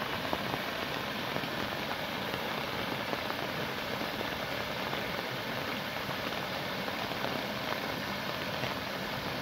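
Muddy rainwater runoff pouring over a grassy bank into a pool, a steady splashing rush of water.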